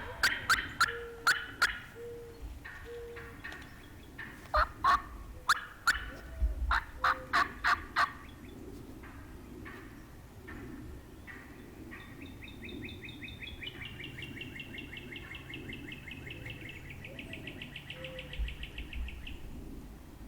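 Excited wild turkey hen cutting: runs of sharp, loud clucks through the first two seconds and again from about four to eight seconds in. Later comes a long, rapid, high trill lasting about seven seconds.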